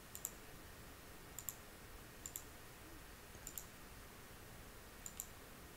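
Computer mouse button clicks, each heard as a quick press-and-release pair, about five spaced a second or so apart, each click placing another vertex of a line being drawn.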